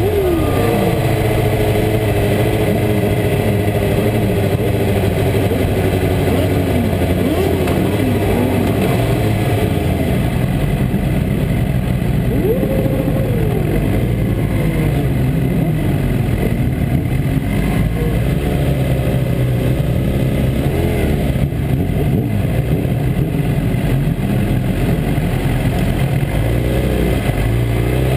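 Sport motorcycle's engine running at low revs while the bike rolls slowly. Its pitch drops and settles in the first second, then wavers with small throttle changes.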